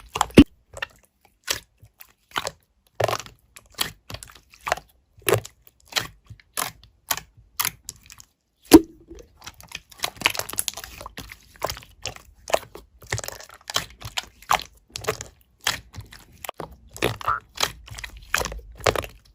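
Slime being pressed and squished by hand, giving a quick run of sharp clicks, pops and short crackles.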